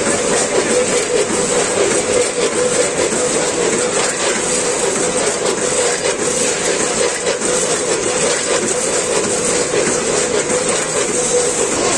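A multihead weigher and packing machine running at full production, around 100 packs a minute. There is a dense, continuous clatter of snack pieces rattling through stainless steel hoppers and weigh-bucket gates, over a steady machine hum.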